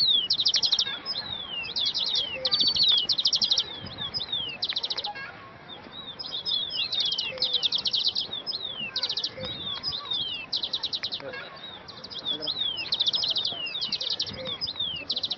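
Small songbirds chirping: quick trills of rapid high notes in short runs, mixed with falling slurred whistles, repeating over and over.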